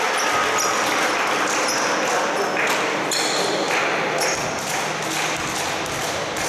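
Basketball shoes squeaking in short, high-pitched bursts on the hardwood court, over an echoing sports-hall din of voices and a ball being dribbled.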